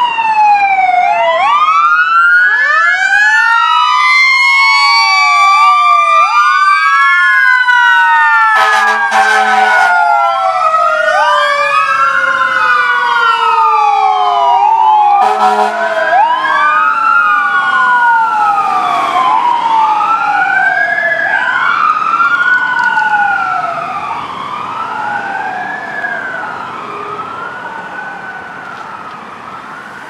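Fire engine siren wailing in repeated rising and falling sweeps, with two blasts of the truck's air horn about nine and fifteen seconds in. The siren grows fainter over the last several seconds as the engine drives away.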